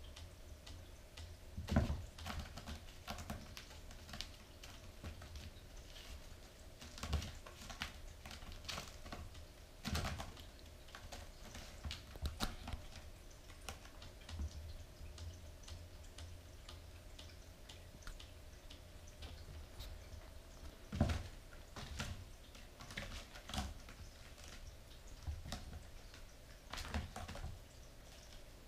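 Irregular light clicks, taps and a few soft thumps of a Bengal kitten playing at a sisal scratching post: batting a toy on a spring wire and landing on the post's mat and the tile floor, with claws catching in the sisal rope near the end.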